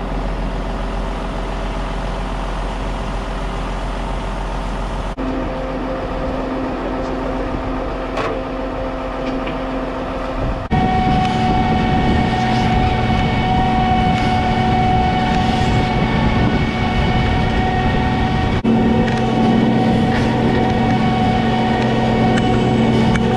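Self-propelled crop sprayer running, its engine and drive giving a steady hum with several high, steady whining tones. The sound jumps abruptly to a new pitch and level three times, and is louder after about ten seconds.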